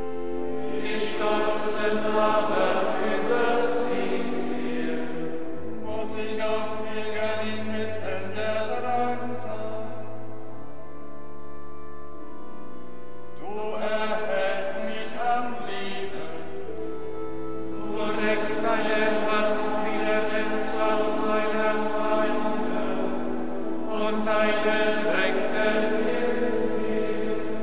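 Monks' choir singing a chant in phrases of a few seconds over held organ chords. The organ goes on alone in the short gaps between phrases, the longest gap coming about ten seconds in.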